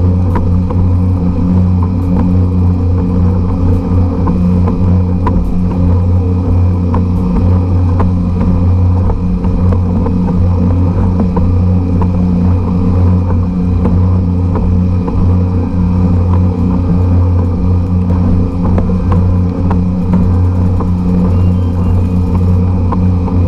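A generic 52cc air-cooled, trimmer-type two-stroke outboard engine running steadily at speed, driving a kayak, with water splashing along the hull.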